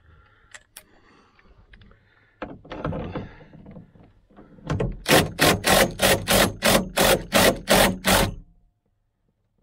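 Cordless impact driver with a 14 mm socket hammering on a seatbelt anchor bolt in the car's B-pillar, in about ten short, even bursts roughly three a second. A shorter burst of tool noise comes about two and a half seconds in.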